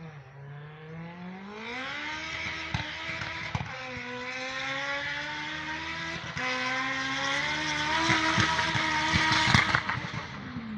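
Fiat Punto GT's 1.6-litre 16-valve four-cylinder engine accelerating hard through the gears, its pitch climbing and dropping back at two upshifts, about four and six seconds in. It grows louder as it nears, loudest shortly before the end, where the pitch falls away.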